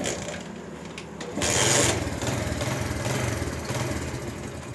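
Honda CD70-type 70cc single-cylinder four-stroke motorcycle engine starting about a second and a half in, catching with a loud burst and then idling steadily. It is run with the new oil-cooler side plate's ports still open, to check that oil flows out of them.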